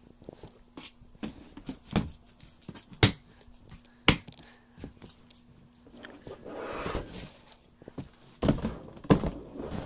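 Objects being handled and set down: a handful of sharp knocks and clicks, the loudest about three and four seconds in, a stretch of rustling in the middle, and two more knocks near the end.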